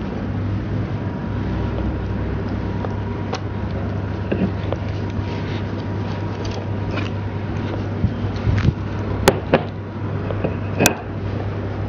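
Rolling pin rolling out dough on a board, with light rubbing and knocking over a steady low hum, and two sharp knocks near the end.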